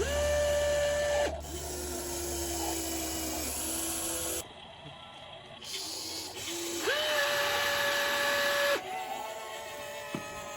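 Electric motors of a toy RC excavator whining in on-off stretches of one to two seconds as the arm and bucket move. A higher whine alternates with a lower one. Each starts and stops abruptly, and one whine rises quickly in pitch as it starts, a little past the middle.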